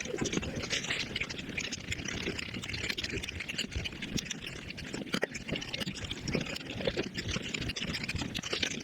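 Eating sounds played back at five times normal speed: a dense, continuous run of wet chewing, slurping and smacking noises with many small clicks.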